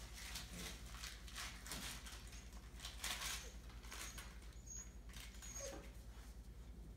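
Five-week-old Entlebucher puppies scuffling and pattering about, with a couple of faint squeaks, over a steady low hum.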